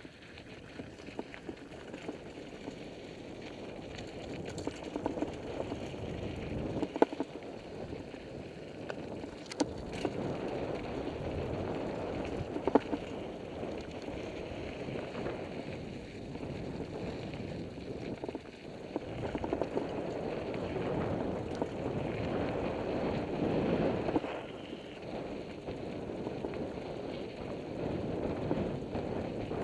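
Mountain bike riding down a loose, rocky dirt trail: tyres crunching over gravel and the bike rattling, with sharp clacks from stones and bumps every few seconds.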